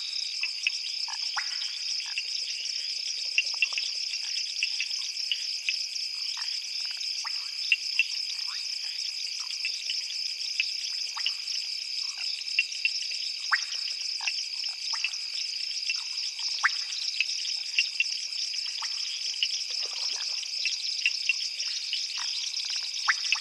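Night chorus of frogs and insects: a steady high-pitched insect chorus with many short, sharp frog calls scattered through it.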